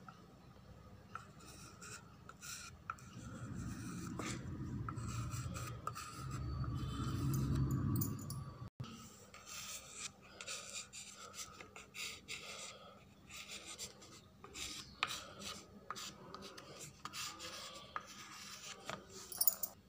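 Ink-coloured chalk scratching and rubbing on a slate in many short, irregular strokes as letters are written. A low rumble swells for a few seconds in the first half.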